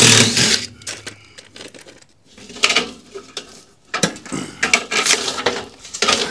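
Irregular scraping, crackling and clattering of foam and thin trim being pried and pulled loose from the bottom of a wall by hand, with a few sharp metallic clinks. The loudest tear comes right at the start, with more bursts about midway and toward the end.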